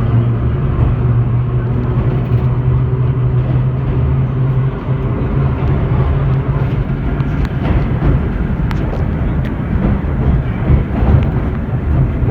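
Vintage IRT Low-Voltage subway car running on the rails: a steady low hum over rumbling wheel-and-track noise. The hum drops off about five seconds in, and a few sharp clicks come later.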